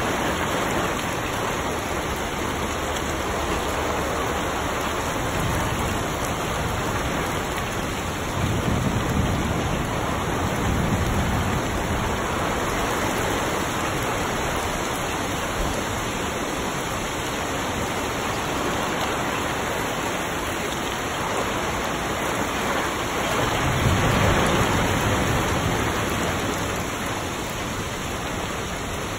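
Heavy rain pouring down on trees, leaves and grass: a dense, steady hiss that swells twice with a deeper, fuller rush, about nine seconds in and again about twenty-four seconds in.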